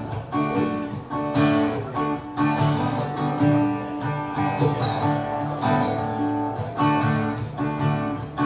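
Acoustic guitar strummed in a steady rhythm, playing a song's introduction before the vocals come in.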